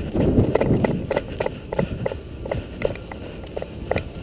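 Quick footsteps on wet concrete, about three steps a second, with a low rumble in the first second.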